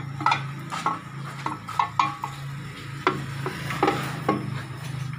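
Scattered metal clinks, taps and scrapes as bolts and parts are worked loose by hand at the front case of a Suzuki K14B engine. A steady low hum runs underneath.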